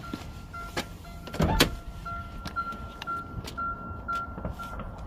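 2009 Chevy Cobalt's electronic warning chime beeping in a quick, even series while the driver's door stands open. A sharp knock comes about one and a half seconds in.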